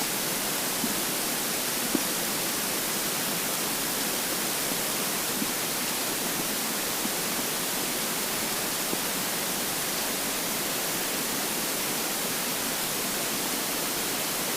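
Steady hiss of a close-miked recording, with a couple of faint, short gurgles from a hungry, empty stomach about one and two seconds in.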